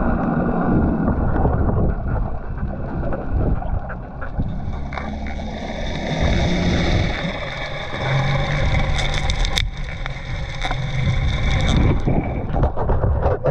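Muffled underwater rush of moving water with the steady drone of a boat's outboard motor, as heard by a camera held underwater.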